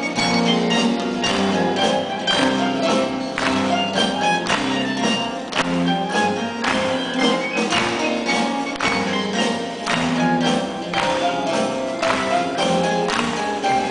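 Live band playing an instrumental passage, heard from the audience: repeated struck notes over held chords.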